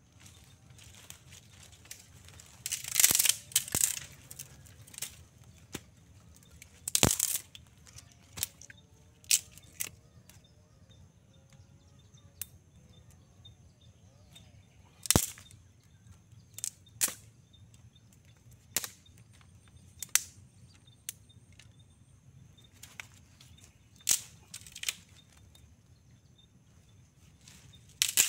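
Dry sticks snapping and crackling as a small stick fire is built and lit on leaf litter: a dozen or so sharp, irregularly spaced cracks, the loudest and longest about three and seven seconds in.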